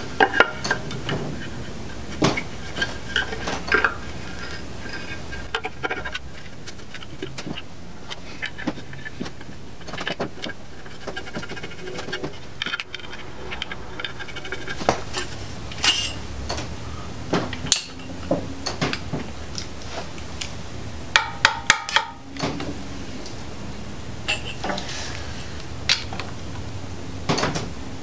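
Metal clinks and clicks of an engine rear cover, its bolts and hand tools being handled and fitted against an engine block, with short ringing after some knocks. A quick cluster of several sharp clicks about three quarters of the way through.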